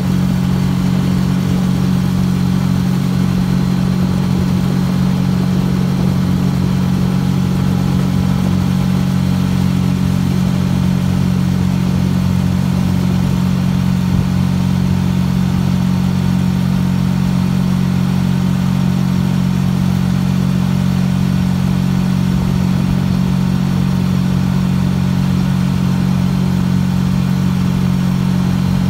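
Small outboard motor driving a canoe, running steadily at constant throttle with an even, low drone.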